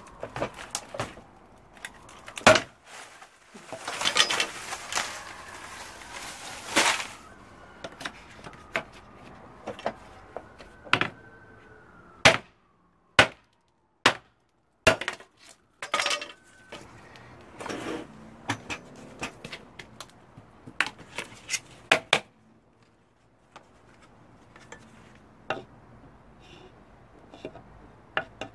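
Dry palm frond stems being cut and split with a knife against a wooden block: a run of sharp cracks, snaps and taps, with a few seconds of rasping cutting through the dry fronds about four seconds in.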